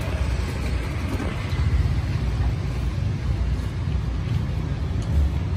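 Steady outdoor street background: a low, fluctuating rumble with an even hiss above it, and no single event standing out.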